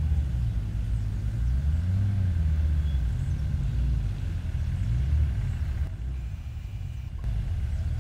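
Low rumble of off-road 4x4 engines climbing a dirt track. The engine note rises and falls about two seconds in and again about a second later.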